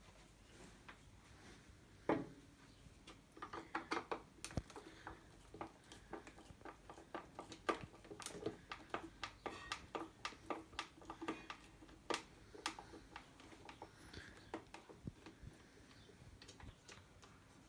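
Screwdriver working on the plastic handle housing of a PowaKaddy FW3 golf trolley, taking it apart to reach the switch: a knock about two seconds in, then a run of small, irregular clicks and taps of tool on plastic.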